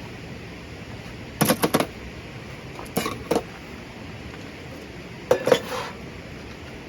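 Metal cookware and utensils clinking: three short bunches of quick clinks and knocks, about a second and a half apart, over a steady background hiss.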